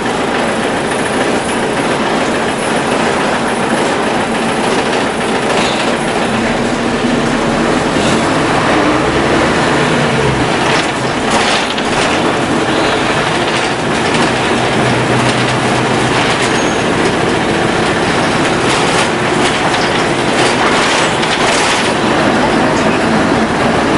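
Inside a 1997 Isuzu KC-LV380N city bus on the move: the Isuzu diesel engine runs loud and strong, its note rising and shifting as the bus pulls along, over steady road noise with scattered body rattles and knocks.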